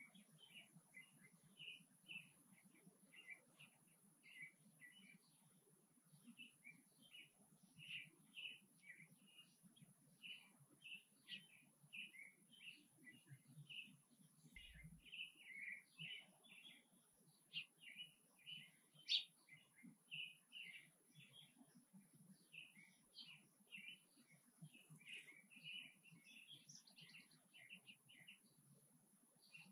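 Faint outdoor birdsong: small birds chirping, a quick steady run of short high notes several times a second, with one sharper note about two-thirds of the way through.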